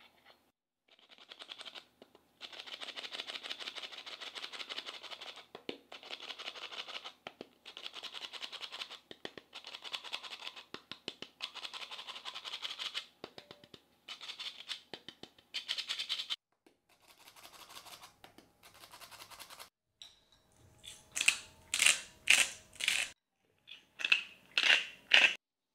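Stainless steel flour sifter working flour through its mesh into a glass bowl: a fast, dry rasping in several runs with short pauses, fainter toward the end. Then about ten sharp, ringing taps in two quick groups near the end.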